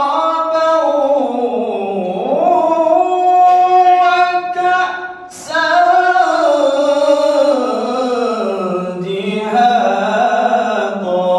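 A male qari chanting Quran recitation (tilawah) in long, melodic phrases, the pitch sliding and ornamented on held notes. There is a short breath pause about five seconds in.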